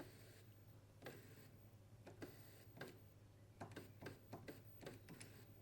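Faint, irregular light clicks and taps from the Midas M32 digital mixer's faders being worked, more frequent in the second half; the faders are working again after being cleaned of sticky hand-sanitiser residue.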